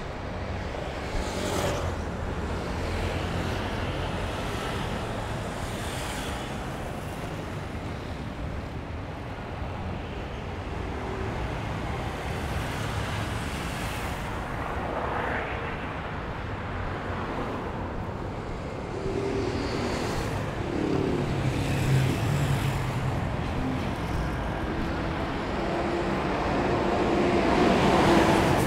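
City street traffic: a steady hum of cars passing on a multi-lane avenue, with a truck's engine growing louder near the end as it approaches.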